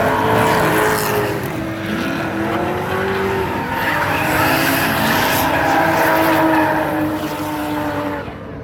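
Drift cars running hard at high revs, the engine pitch rising and falling with throttle, over the hiss and squeal of spinning tyres; it eases off near the end.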